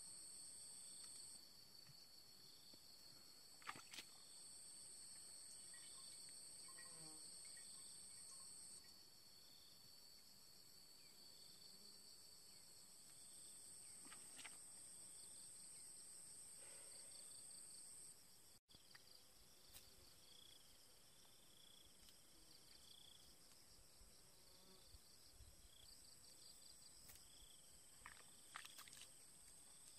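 Faint insect chorus: a steady high trill, with a shorter chirp repeating about once a second. A few faint clicks break in here and there, more of them near the end.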